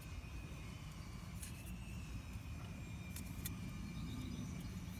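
Steady low outdoor rumble with a faint steady high tone, and a few faint light clicks of plastic anemometer cups being handled and fitted into the rotor ring.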